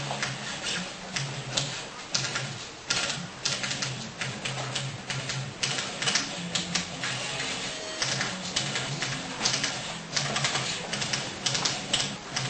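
Rapid, irregular clicking and tapping, several sharp clicks a second, over a steady low hum.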